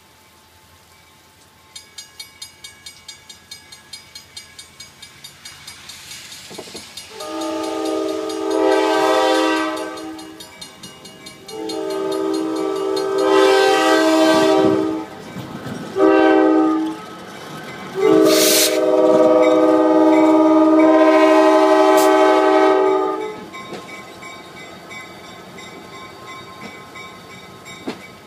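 Diesel locomotive air horn sounding the grade-crossing signal, long, long, short, long, over a railroad crossing's warning bell that starts ringing rapidly about two seconds in.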